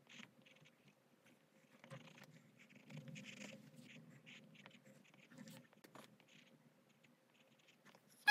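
Faint pencil scratching on paper, in short intermittent strokes.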